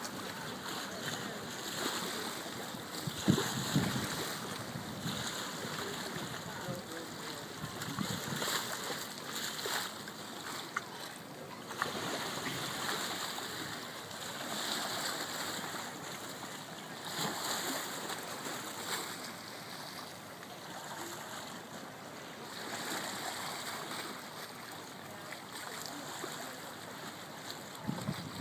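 Wind and lapping water, a noisy wash that swells and fades every few seconds, with a single louder knock about three and a half seconds in.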